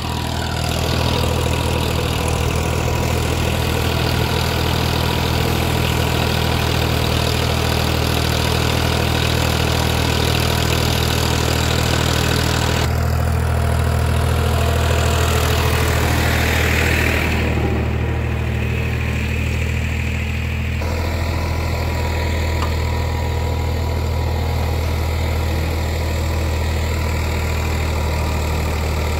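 Farmtrac 45 tractor's three-cylinder diesel engine running steadily under load as it pulls a 16-disc harrow through the soil. The sound shifts abruptly twice, about halfway through and again a little later.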